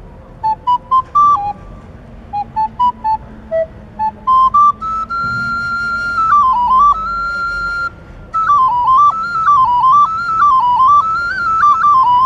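Solo recorder playing a pasodoble tune: short detached notes in little rising phrases, then a long held high note with a quick dip, and after a brief break a winding run of notes up and down that ends falling.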